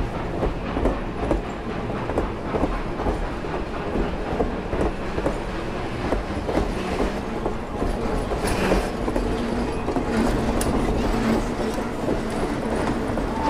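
Passenger coaches rolling past close by, their steel wheels clicking and clacking over the rail joints over a steady rumble.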